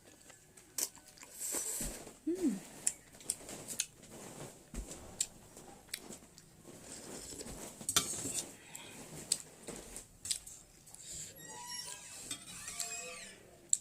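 Spoon or chopsticks clinking and scraping against a bowl during eating, a scattered series of sharp clicks and taps.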